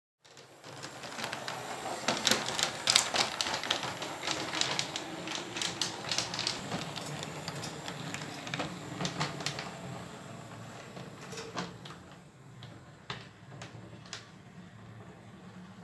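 Motorised Dicky-Toy Cityliner model tram running along its track, its wheels clicking and rattling rapidly over a steady low motor hum. The clatter thins out and gets quieter after about ten seconds as the tram moves off.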